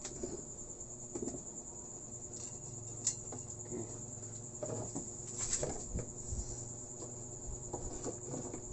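Steady high-pitched insect chirring, with a few light clicks and taps from handling the multimeter lead being clipped to the TV chassis.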